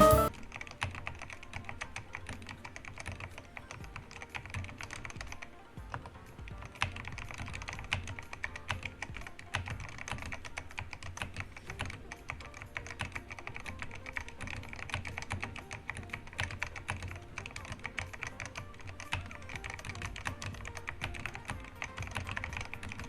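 Steady, fast typing on a Redragon K617 Fizz 60% mechanical keyboard with red linear switches: a dense run of key clacks, with a short lull about six seconds in.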